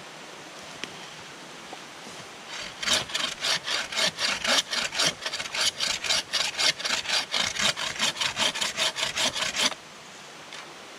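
Homemade wooden bow saw with a steel blade cutting through a log in rapid, even back-and-forth strokes. It starts about three seconds in and stops shortly before the end.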